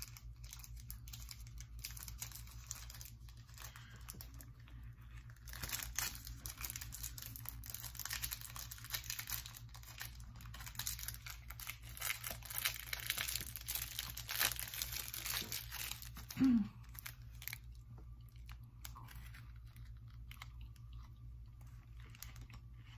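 Plastic wrapper of a Toffee Crisp candy bar being crinkled and torn open by hand, a dense crackling from about six seconds in until about sixteen seconds, then quieter handling.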